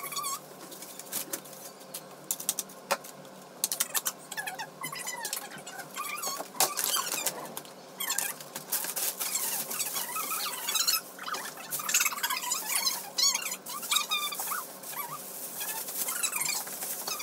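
A dog whining in high, wavering squeaks, over and over, mixed with the crackle of plastic bags being handled.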